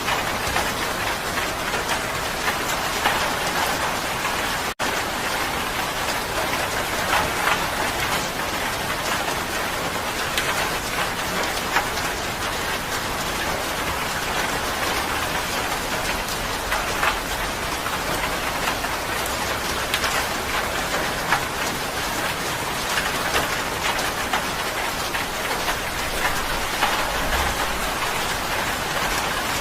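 Steady rain falling, an even hiss with individual drops pattering through it. The sound cuts out for a split second just under five seconds in.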